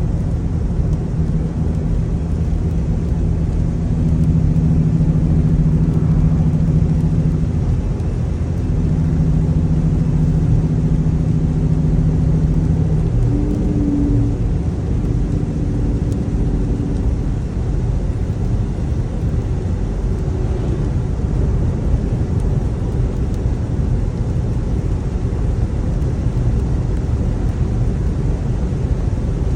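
Car being driven, heard from inside: a steady low drone of engine and tyres on the road, with a humming tone that rises in pitch about 13 seconds in and fades away a few seconds later.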